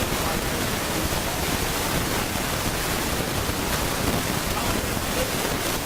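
Steady, loud hiss of recording noise spread evenly across the range, burying everything else: the sign of a badly recorded sound track.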